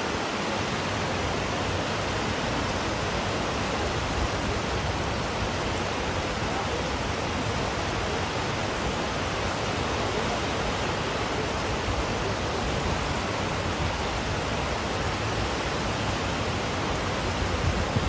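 Waterfall and shallow rocky creek water rushing: a steady, even hiss of falling water with no change in level.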